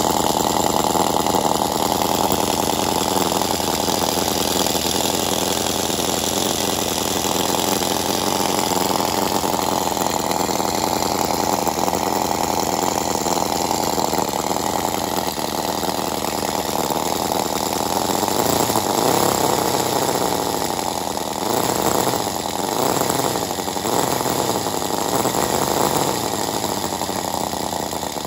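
Miniature inline four-cylinder model engine of a brass crawler tractor running fast with a high, rapid buzz. Its speed rises and falls a few times about two-thirds of the way in.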